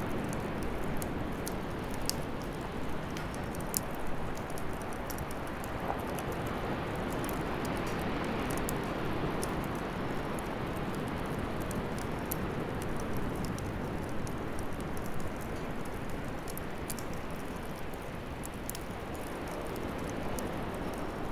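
Wood fire burning in a bonfire stand: a steady hiss with frequent small crackles and pops throughout.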